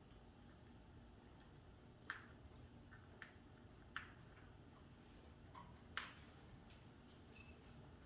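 A Senegal parrot eating: sharp, irregular clicks of its beak working its food, five or so over eight seconds, against near silence.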